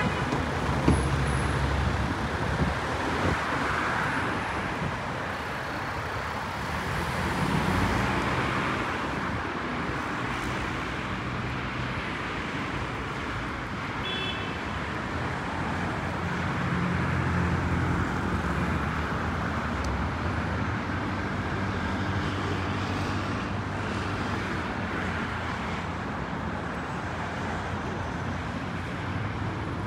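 Steady city road traffic: cars and buses driving past, engine hum and tyre noise swelling and fading as they go by. A short high-pitched tone sounds briefly about halfway through.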